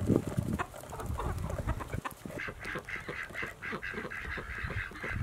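A flock of Icelandic chickens clucking and calling, with a run of quick repeated calls from about halfway through.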